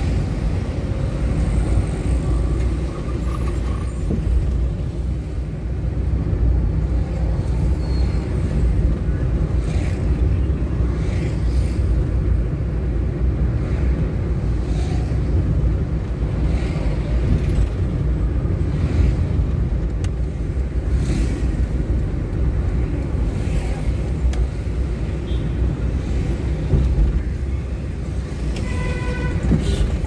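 Steady low rumble of a Nissan March (Micra) on the move: its engine and tyre noise, with the sounds of passing road traffic.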